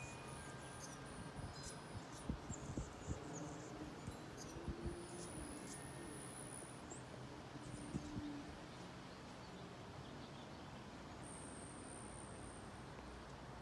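Faint outdoor ambience with a steady low rumble and a few soft knocks in the first half. Three high, thin buzzing notes of about a second each sound near the start, in the middle and near the end.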